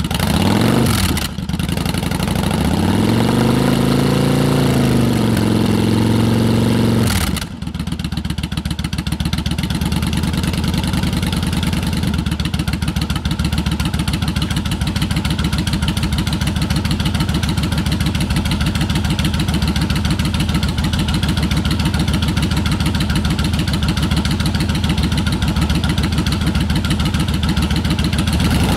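2008 Yamaha V Star 1100 Classic's air-cooled V-twin running through Jardine Rumblers drag pipe slip-on exhausts. It gives a quick blip, then a longer rev that rises and falls, and drops back to a steady idle with an even pulse about seven seconds in.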